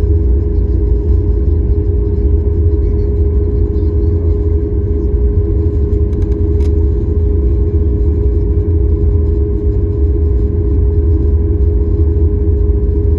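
Cabin noise of a Boeing 737 airliner taxiing: a steady low rumble from the jet engines at taxi power and the wheels rolling on the taxiway, with a constant mid-pitched hum over it.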